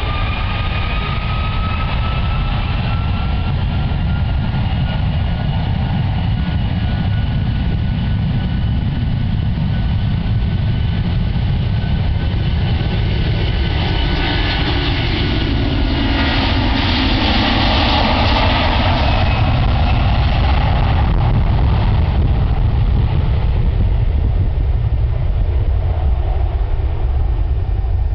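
Airbus A330 twin-engine jet airliner on its takeoff roll at takeoff thrust: a whine that rises slowly at first, then a loud rush of jet noise as it passes about halfway through, over a low rumble throughout.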